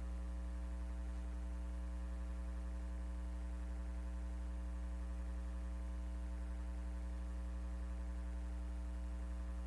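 Steady electrical mains hum on a blank recording: a deep, unchanging drone with a buzzy row of overtones above it, typical of a ground loop or hum in the capture chain.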